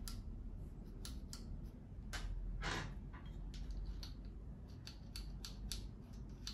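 Small metal parts being handled: light, scattered metallic clicks and a brief scrape about two seconds in, as a nut is turned on the threaded stem of a brass sink strainer basket and a stainless steel bolt is picked up.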